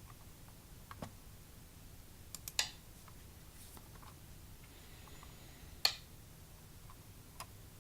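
A few short, sharp clicks, the loudest about two and a half and six seconds in, over a faint steady low hum.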